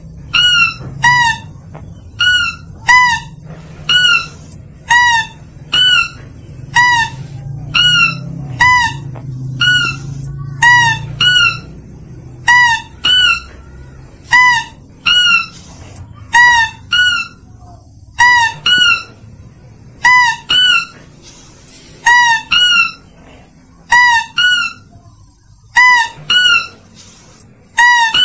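Mouse-deer lure call: short, high, squeaky calls with a slight upward hook, mostly in quick pairs, repeating about every two seconds in an even, looped pattern.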